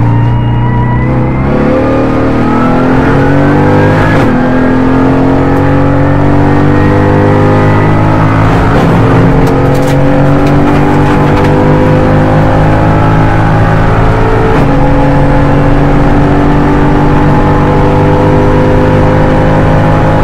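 Mercedes-AMG GT4's twin-turbo V8 heard from inside the cockpit, accelerating up through the gears. The engine note climbs in pitch, drops at upshifts about 4, 9 and 14 seconds in, and climbs more slowly in each higher gear.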